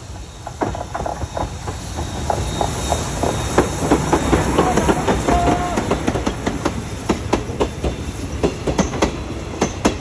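Steam locomotive and its passenger carriages passing close by, wheels clacking rhythmically over rail joints. The clatter builds to its loudest about four to five seconds in as the engine goes past, with a brief squeal near the middle.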